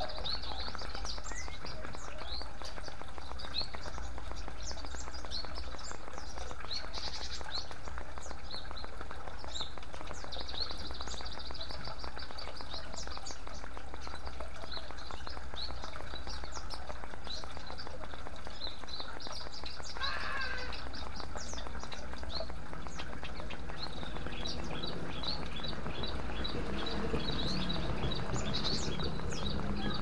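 Water trickling and splashing from bamboo fountain spouts into a bowl and onto rocks, with many small birds chirping in quick, high notes throughout and a lower call near the end.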